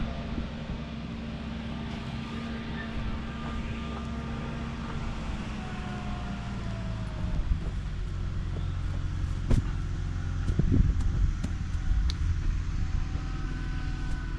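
A vehicle engine running steadily with a low hum, a little louder in the second half, with a few sharp knocks and clanks.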